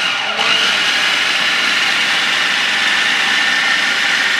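Food processor motor running steadily with a steady whine as its blade chops and mashes a bowlful of roasted cauliflower, turnips and onions. There is a brief dip about half a second in.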